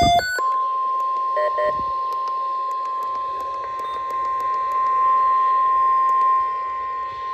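The tail of a SAME digital header burst, then the NOAA Weather Radio 1050 Hz warning alarm tone: one steady high tone over radio hiss, with two short beeps about a second and a half in.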